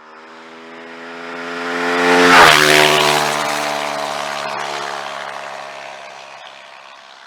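Suzuki DRZ400's single-cylinder four-stroke engine through a DEP aftermarket exhaust, passing by at steady throttle: it grows louder, goes past about two and a half seconds in with a drop in pitch, and fades away.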